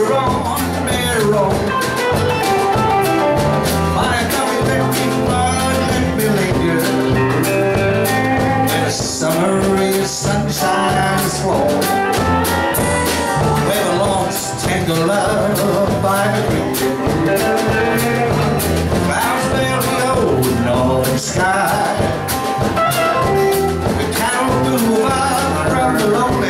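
Live country band playing a mid-tempo song: strummed acoustic guitar, electric guitars and a drum kit keeping a steady beat.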